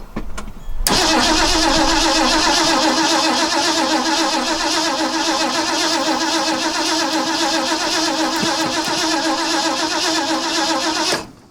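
Starter cranking the 1980 Ford F-350's 400 V8 steadily for about ten seconds without it catching, then stopping suddenly; the engine is being tried on gas fed from an electric fuel pump straight to the carburetor and does not start.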